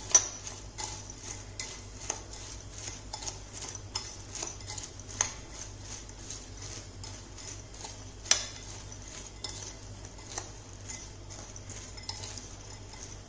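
A metal spoon stirring fried crispy corn kernels in a glass bowl: a continuous run of light clicks and scrapes, with a few sharper clinks of spoon on glass, the loudest just after the start and about eight seconds in.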